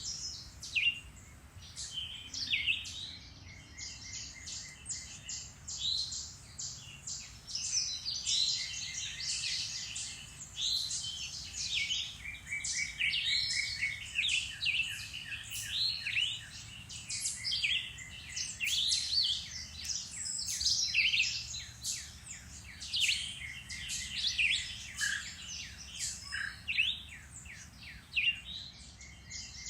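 A woodland chorus of several songbirds chirping and singing at once, with many overlapping whistled phrases and quick trills. A faint low steady rumble runs underneath.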